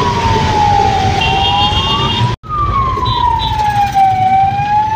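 Ambulance siren wailing, its pitch slowly rising and falling, heard from inside the ambulance over steady road noise. It breaks off for a moment about halfway through and then carries on.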